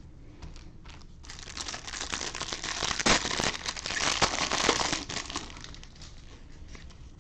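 Plastic wrapper of a baseball trading-card pack crinkling as it is torn open by hand, lasting about four seconds and loudest in the middle. It is followed by a few light ticks as the stack of cards is handled.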